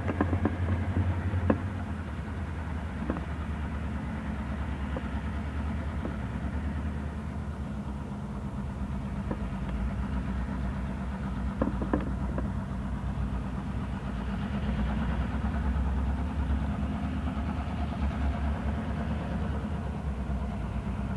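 Canadian Pacific diesel locomotives running in a rail yard: a steady low engine drone. A few sharp knocks cut in, the loudest about a second and a half in and another near twelve seconds.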